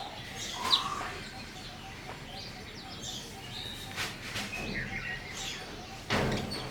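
Indian sparrow chirping: short, scattered chirps at varied pitches, with one sharp, loud chirp about a second in. A brief, louder burst of noise comes near the end.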